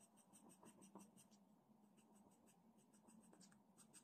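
Faint scratching of a green coloured pencil hatching on paper in rapid back-and-forth strokes, pausing briefly about a second and a half in and then starting again, as a strip of the plan is shaded in.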